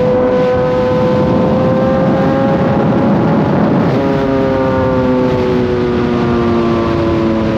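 Kawasaki inline-four sport-bike engine running at a steady cruising pitch under heavy wind noise. About four seconds in the engine note changes, then sinks slowly.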